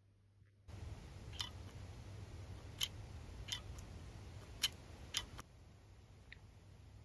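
A retractable rollerball pen handled over low hiss, giving about seven faint, sharp, irregular clicks, then one fainter tick near the end.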